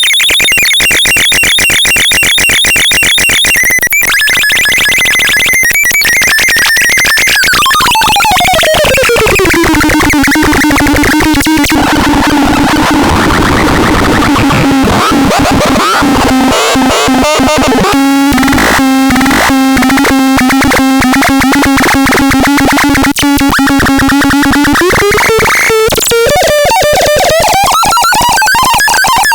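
Synthesized electronic tones from a Baltarel Ultra Max sound device. A high warbling tone gives way to a long falling pitch glide, then a low tone pulsing rapidly, and the pitch rises again near the end.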